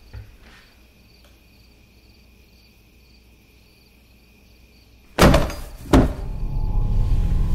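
Faint crickets chirping in a quiet house, then about five seconds in two loud door bangs less than a second apart, followed by a low droning horror score.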